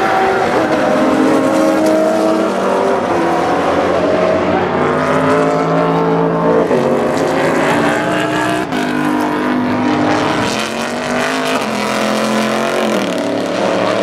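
GT race car engines running at high revs as the cars pass, the pitch climbing and then stepping down at gear changes several times.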